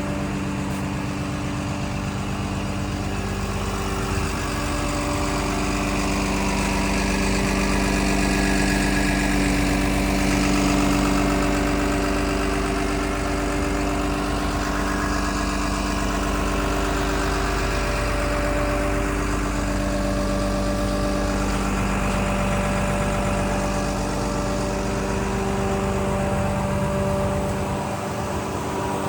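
Komatsu D61PXi-24 bulldozer's six-cylinder diesel engine idling steadily.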